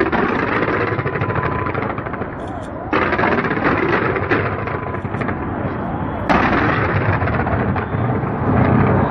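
Fireworks display: dense, rapid crackling and banging bursts, with louder volleys breaking in suddenly about three seconds in and again about six seconds in.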